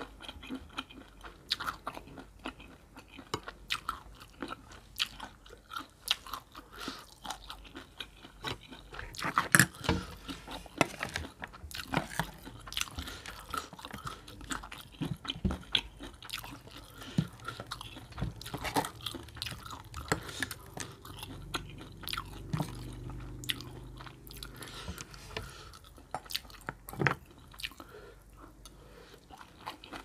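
Close-miked wet chewing and crunching of a spicy horseshoe crab roe salad with shredded raw vegetables, in irregular bites, with the loudest crunch about ten seconds in.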